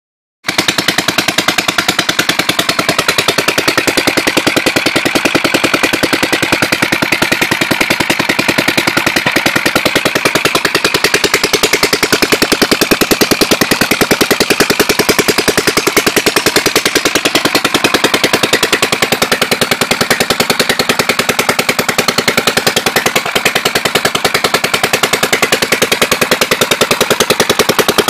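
1953 Teijo 3 hp single-cylinder marine inboard engine running steadily with a fast, even firing beat.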